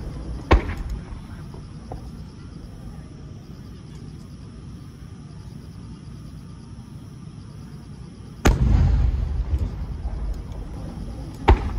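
Aerial firework shells bursting: a sharp bang about half a second in, a much bigger boom about eight and a half seconds in that rolls on for over a second, and another sharp bang near the end.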